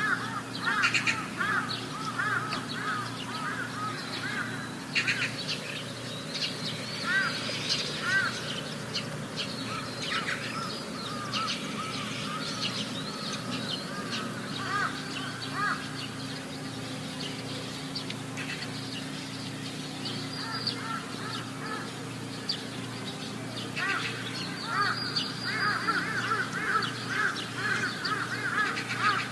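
Animal calls: runs of short, high, arched chirps repeated many times, thickest near the start, in the middle and again near the end, over a steady low hum.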